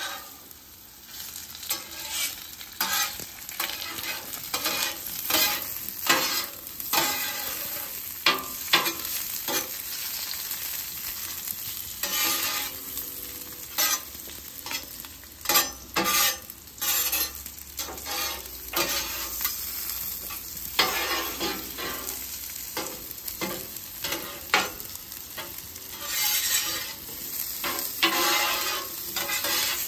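Steak fries and bacon sizzling in oil on a flat-top griddle. Two steel spatulas scrape and clack on the hot steel again and again as the fries are turned and spread out.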